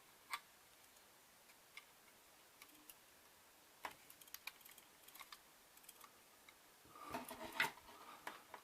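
Faint, scattered clicks and ticks of small plastic K'NEX parts and a minifigure being handled and fitted, with a denser patch of clicking and rustling about seven seconds in.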